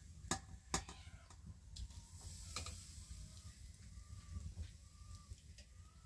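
Faint clucking of hens in the background, short calls scattered through, with a few sharp clicks and knocks in the first few seconds from handling a cloth straining bag over a steel pot.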